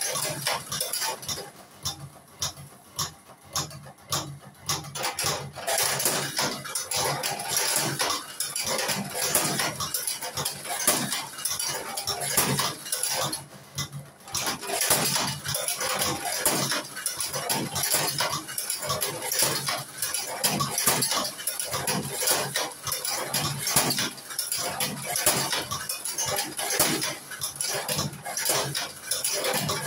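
Cigarette tube-filling machine at work, a fast run of metallic clicks and clatter as tobacco is packed into filter tubes one after another, quieter for a few seconds near the start.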